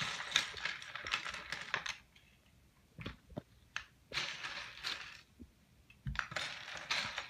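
Plastic Lego bricks clattering and clicking as hands rummage through a loose pile of them on a wooden tabletop. The rattling comes in three spells, with a few single clicks between.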